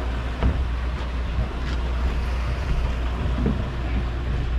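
Steady low rumble of a sportfishing boat with wind buffeting the microphone and the sea washing alongside.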